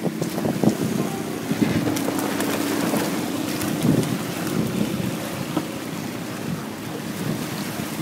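Wind buffeting the microphone over water rushing and splashing against the hulls of a sailing catamaran under way.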